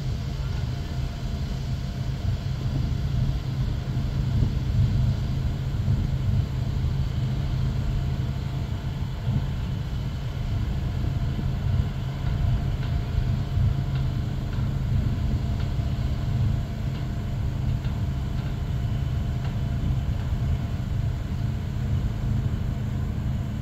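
An engine idling steadily with a low rumble.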